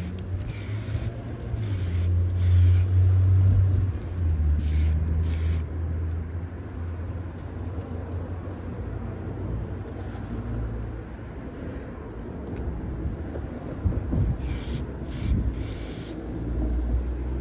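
Aerosol can of clear lacquer spraying in short hissing bursts: several in the first few seconds, two more around five seconds in, and a few more near the end. The can is running low on pressure. A steady low rumble runs underneath.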